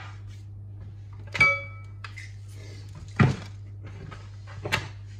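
Kitchenware being handled on a worktop: a sharp knock with a brief ring like crockery being set down, then a heavier knock and a small clatter, over a steady low hum.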